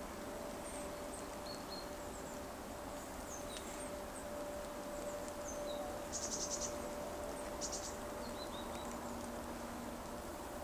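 Outdoor field ambience with small birds chirping now and then, and two short, rapid, high trills about six and seven and a half seconds in, over a faint steady hum.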